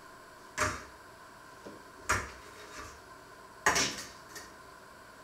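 Metal pots and lids being handled on a stovetop: three sharp clanks about a second and a half apart, each ringing briefly, with fainter clinks between.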